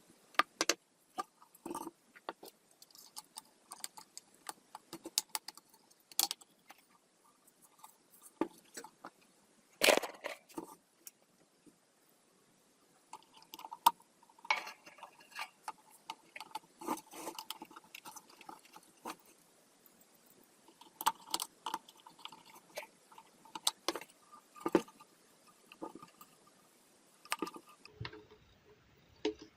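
Irregular clicks, knocks and light scraping of small hard parts being handled, with a few sharper knocks about ten and fourteen seconds in.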